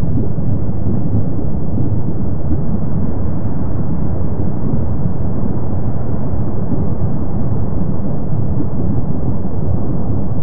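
Kīlauea lava fountains erupting in a lava lake: a steady low rumble with no separate bursts standing out.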